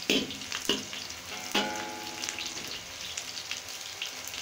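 Sliced onions sizzling in hot oil in a wok, just starting to brown, stirred with a metal ladle that scrapes and knocks against the pan about six times. A short ringing tone follows a knock about a second and a half in.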